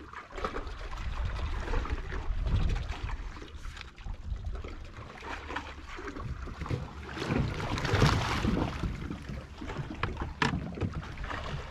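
Water lapping and sloshing against an inflatable dinghy, with wind buffeting the microphone. About eight seconds in, a louder rush and splash of water as a snorkeler slides off the side tube into the sea.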